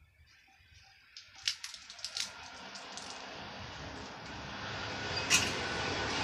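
A road vehicle approaching, its noise rising steadily. A few sharp clicks or cracks sound about one and a half and two seconds in, and a louder one about five seconds in.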